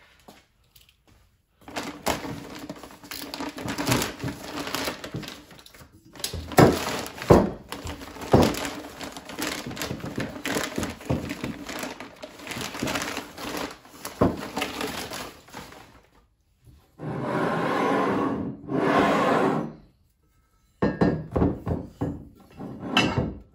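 Thick plastic packaging bag crinkling and tearing as it is cut and pulled open by hand, with sharp knocks from the stainless exhaust manifold parts inside shifting on the bench. Two longer, steadier stretches of rustling come about two-thirds of the way through, and a quick run of clicks and taps near the end.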